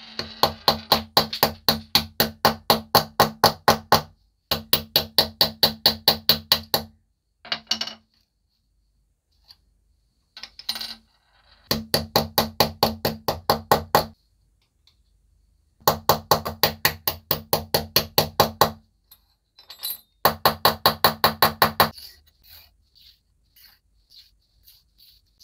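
Fast, even metallic strokes with a ringing tone, about four to five a second, in runs of two to four seconds with short pauses between, fading to a few faint ticks near the end: a hand tool working metal.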